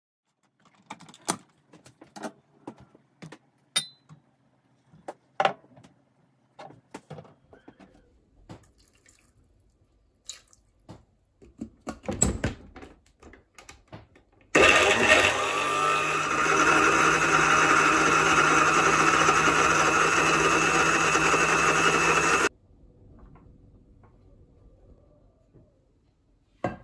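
Water splashing and dripping as hands squeeze blanched mugwort leaves in a steel strainer. Then an electric countertop blender runs steadily for about eight seconds, blending the mugwort into paste, and cuts off suddenly. A light knock near the end as a ceramic bowl is set down.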